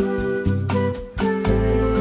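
Instrumental background music with held notes, a changing bass line and a regular beat, with a short drop in loudness about a second in.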